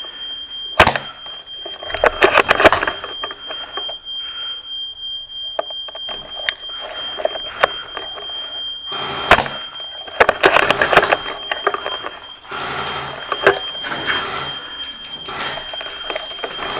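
Airsoft guns firing: clusters of sharp cracking shots, single and in rapid bursts, over a steady high-pitched electronic tone.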